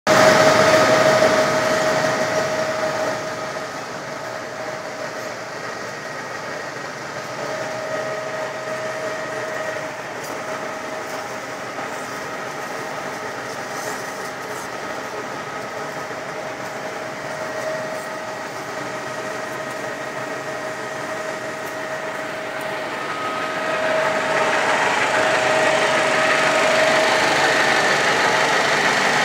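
Skoda SD160 heavy-duty lathe running while it turns a steel shaft: a steady machine hum and whine carrying several steady tones. The sound is louder in the first couple of seconds, settles, and grows louder again near the end.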